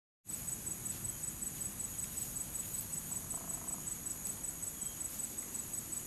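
Outdoor ambience: a faint, uneven low rumble of wind on the microphone under a steady, high-pitched pulsing insect trill.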